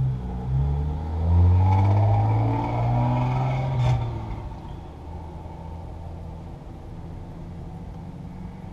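Car engine heard from inside a Porsche Cayman S cabin, its pitch rising and falling for about four seconds. It then settles to a steady, quieter low hum. A sharp click comes just before it settles.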